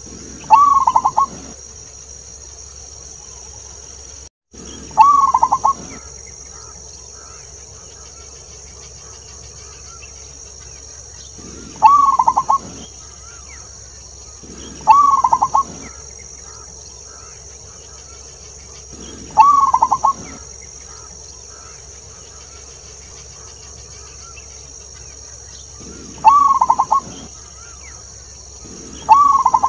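Zebra dove (perkutut) cooing: seven song phrases a few seconds apart, each about a second long, a short rising opening note followed by a quick run of clipped coos. A steady high-pitched hiss runs underneath.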